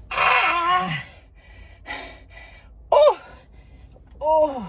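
A man's pained vocal cries as his bare legs touch a sun-baked black leather car seat: a long yelp with falling pitch, a short sharp yelp about three seconds in, and another falling cry near the end, with a quick breath between.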